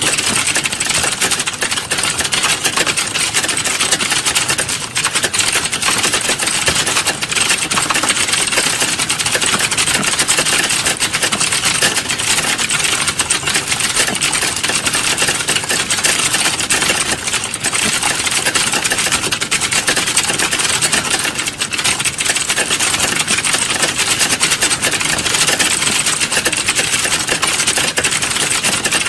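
Rapid, continuous typing on a computer keyboard: a dense, steady clatter of key clicks with no pauses.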